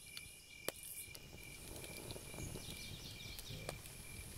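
Crickets chirping in the dark, faint and steady, with a few sharp clicks and a soft low rustle in the middle.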